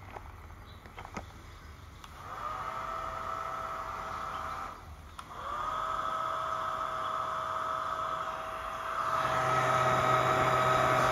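Electric Gatling bubble gun's small motor and fan whirring with a steady whine. It spins up about two seconds in, cuts out briefly before the middle, spins up again and gets louder near the end. A few faint clicks come before the first run.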